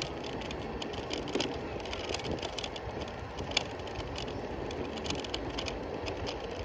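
Electric kick scooter rolling over pavement: steady rolling rumble with frequent small rattles and clicks, and one sharper click about three and a half seconds in.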